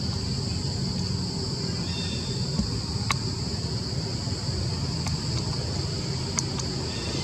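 Steady high-pitched insect buzz over a low rumble, with a few short ticks, one about three seconds in.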